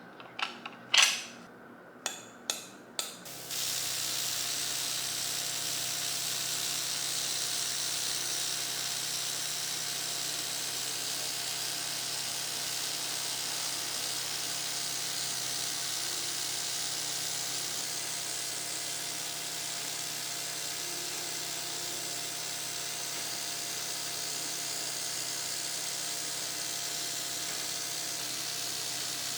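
A handful of sharp clicks, then a small motor starts and runs steadily with a high hiss and a faint hum.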